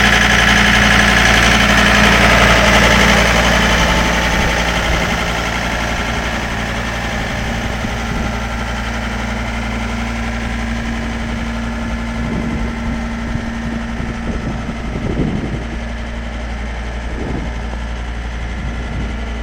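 2009 John Deere 328 skid steer's diesel engine running, settling down over the first few seconds to a steady, quieter idle.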